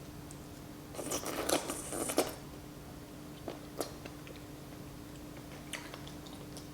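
Mouth sounds of eating noodle soup close to the microphone, in a noisy run about a second in, then a few soft clicks, over a faint steady hum.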